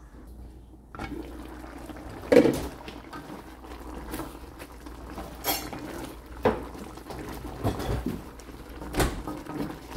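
Chicken simmering in coconut milk in a pan, starting about a second in, with a steady low simmer under a handful of sharp clinks and knocks of kitchenware against the pan, the loudest about two seconds in.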